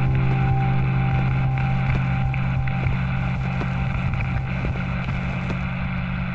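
Low, steady synthesized drone from the logo outro's soundtrack: a deep hum with an overtone above it, broken by scattered faint clicks and crackles, slowly fading.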